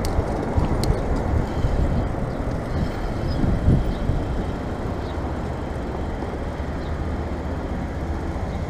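Steady rush of road traffic and wind noise heard while riding a bicycle along a busy road, easing slightly over the first few seconds.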